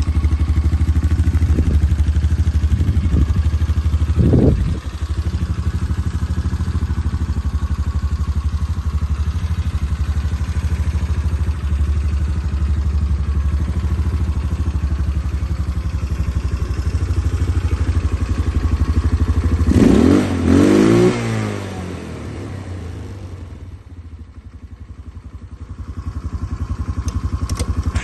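A 180cc ATV's engine idling with a rapid, even putter, blipped a few times in the first few seconds. About twenty seconds in it is revved up sharply and drops back, then runs quieter for a few seconds before rising again near the end.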